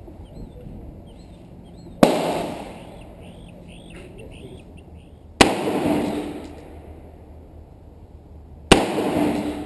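Three gunshots, about three seconds apart, each a sharp crack with a short echoing tail.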